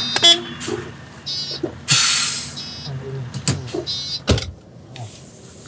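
A BMW car rolling slowly past close by, with a loud hiss about two seconds in and a low thump a little after four seconds.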